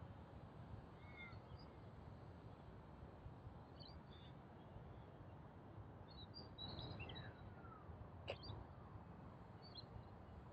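Faint outdoor ambience: scattered short bird chirps and gliding calls over a low wind rumble, with a sharper call about eight seconds in.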